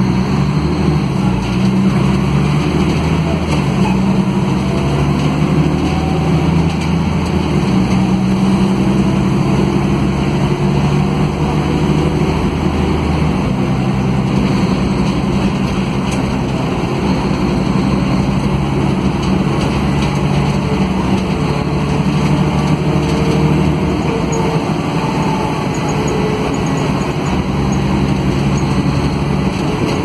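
Mercedes-Benz OM457LA inline-six diesel of an O500 UA articulated city bus with a ZF Ecomat automatic gearbox, running under way in normal driving, heard from inside the passenger cabin. The engine note is steady over the road rumble, its pitch shifting a few times as the bus changes speed.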